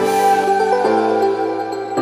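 Background music of held, sustained chords that change to a new chord about a second in.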